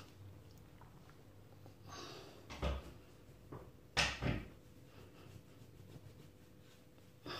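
A few separate knocks and clatters of make-up being handled on a counter as a plastic jar of loose powder is picked up and things are moved about. The loudest are two knocks close together about four seconds in.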